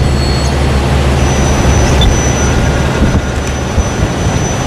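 Mack heavy-haulage prime mover's diesel engine running with a steady low rumble as it pulls the oversize load at walking pace.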